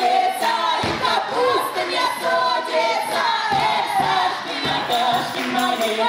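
A Cossack folk ensemble of women's and a man's voices singing a lively folk song together, with shouts among the singing. A few short low thumps sound about a second in and again a few times past the middle.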